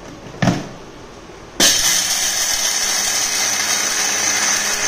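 A short knock, then about a second and a half in an electric mixer grinder with a steel jar starts abruptly and runs steadily and loudly, dry-grinding peanuts with salt and garlic.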